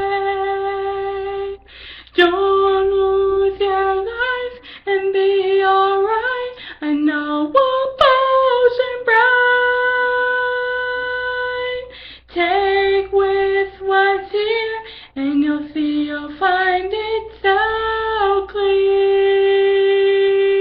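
A young woman singing unaccompanied, with long held notes and short melodic phrases that slide between pitches, broken by brief breaths.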